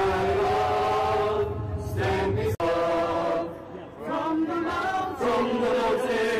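Voices singing slowly in a choir-like way, holding long notes, with a sudden short break about two and a half seconds in.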